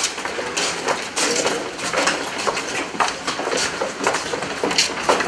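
Footsteps of several men walking on a paved path, shoes scuffing and tapping in an uneven overlapping rhythm as they pass close by.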